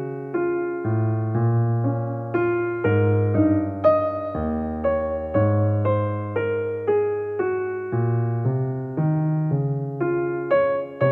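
Background music on a keyboard: a gentle piano-like tune played over chords and low bass notes, each note struck and then fading.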